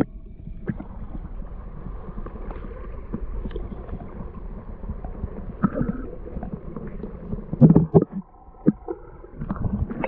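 River water moving along the bank, with wind rumbling on the microphone and scattered handling knocks, and a louder rustle a little before the end.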